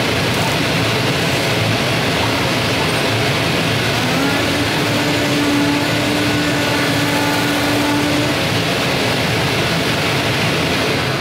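Zund G3 3XL-3200 digital flatbed cutter running a V-cut job in corrugated cardboard: a steady, loud rushing machine noise. A steady low tone joins it for about four seconds in the middle as the head works.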